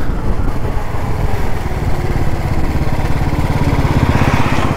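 Motorcycle engine running steadily under way, with a rapid, even beat of firing pulses and some wind and road noise over it.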